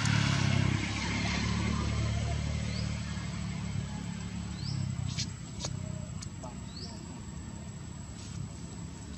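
Low hum of a vehicle engine, loudest at first and fading over several seconds, with a few short rising chirps and light clicks.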